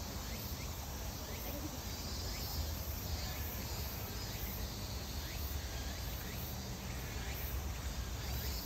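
Insects chirping in a steady, pulsing high trill, with short repeated chirps and a low rumble underneath.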